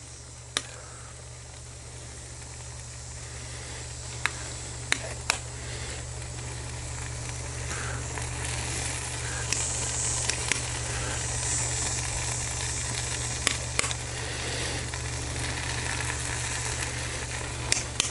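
Peach filling sizzling in a hot cast-iron Lodge Cook It All over charcoal, a steady hiss that grows slowly louder, with about nine sharp clicks of a metal spoon against a glass mixing bowl as cobbler batter is spooned on.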